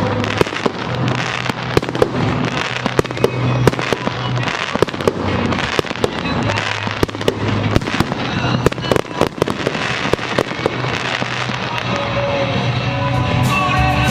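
A fireworks display: shells bang and crackle in rapid, dense succession, with music underneath that comes up near the end.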